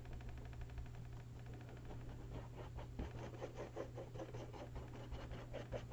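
Faint handling sounds of paper and small craft pieces on a table: a fine rapid crackle for the first two seconds or so, then scattered light taps and scratches, over a steady low hum.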